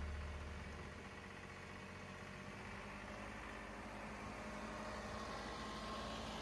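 John Deere 2038R compact tractor's three-cylinder diesel engine running as the tractor drives past, growing a little louder toward the end.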